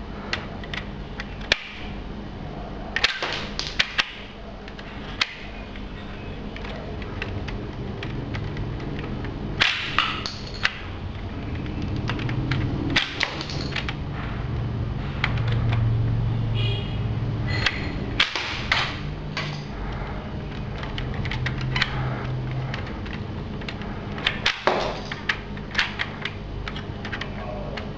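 A LEGO brick-shooting AN-94 replica firing: sharp plastic snaps of the mechanism going off, singly and in quick clusters of two to four, with small bricks clattering. A low steady hum runs underneath and swells in the middle.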